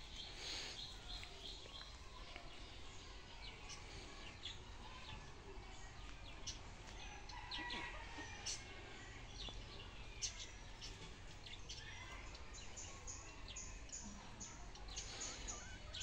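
Domestic chickens clucking faintly while they forage, with short, high chirps scattered throughout and a quick run of them near the end.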